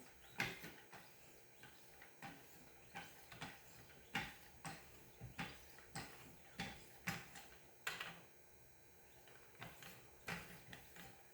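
Leather strops on a Wicked Edge knife sharpener drawn in quick alternating strokes along a knife edge: a faint series of light clicks and swipes, about two to three a second, with a short pause near the end.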